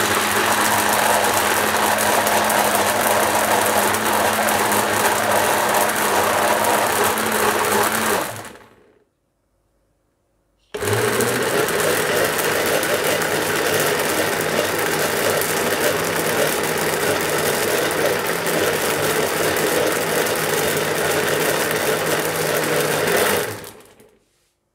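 Electric countertop blender running steadily, grinding falsa berries with water into a seedy pulp. About eight seconds in it is switched off and spins down, then it starts again abruptly about two seconds later and runs until it spins down near the end.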